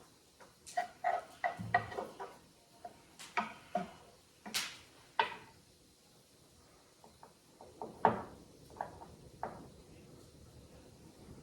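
A homemade puzzle box being handled and turned on a table: a run of short knocks and clicks, thickest in the first five seconds and sparser after about eight seconds.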